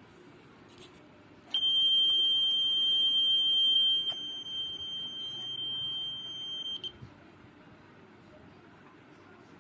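Homemade LDR security alarm's buzzer sounding one steady, shrill high tone, set off by picking up the guarded object. It starts with a click about a second and a half in, drops in loudness about halfway, and cuts off suddenly about two-thirds of the way through.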